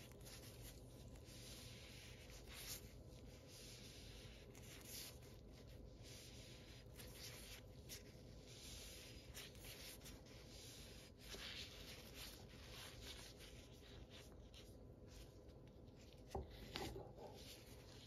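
Terry towel wiping a wet glazed ceramic vase: soft, repeated rubbing strokes, then a light knock near the end as the vase is set down on the countertop.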